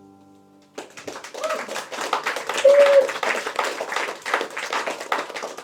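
Last acoustic guitar chord fading out, then a small audience breaks into applause under a second in, with one short whooping cheer in the middle.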